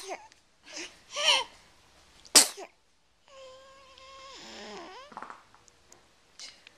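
A sneeze right at the start and another about two and a half seconds in, with short whimpers between them. Then a long whine held on one pitch for over a second, which bends downward at its end.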